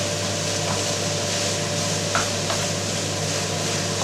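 Ground meat and onions sizzling in a non-stick frying pan while being stirred with a wooden spatula, with a few light taps and scrapes of the spatula against the pan.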